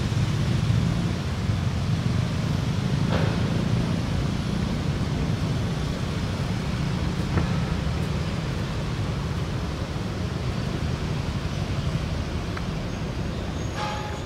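Steady low rumble of background noise, with a faint click about three seconds in and another about seven seconds in.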